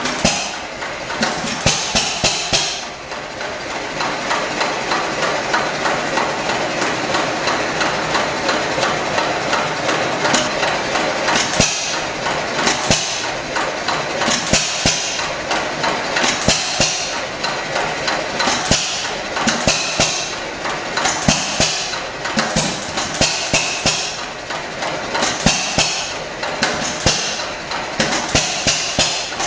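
Hit-and-miss stationary engine running: sharp knocks and pops at uneven intervals over a steady mechanical clatter, with a hiss that comes and goes every second or two.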